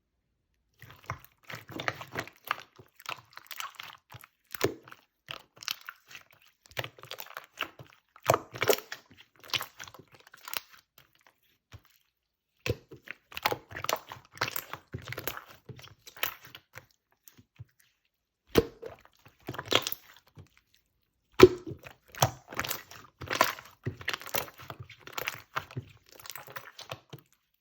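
Light pink clear slime being squished and pressed by hand, giving irregular runs of sticky clicks and pops, broken by a few short pauses.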